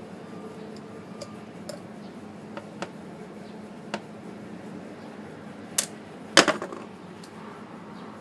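Scattered small clicks and knocks of a screwdriver, small screws and the plastic cover as the top cap of a motorcycle front brake fluid reservoir is unscrewed and lifted off. The loudest knocks come about six seconds in, over a steady low hum.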